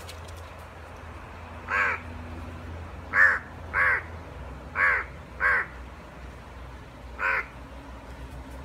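Crow cawing: six short caws, spaced unevenly, some in quick pairs.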